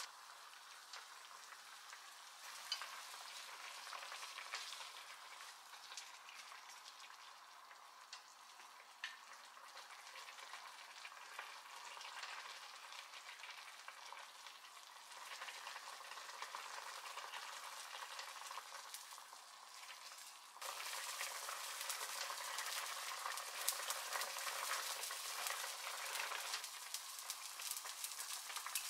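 Chicken thigh pieces and sliced onion sizzling and simmering in a frying pan, with a few light knocks. The sizzle turns louder about two-thirds of the way through.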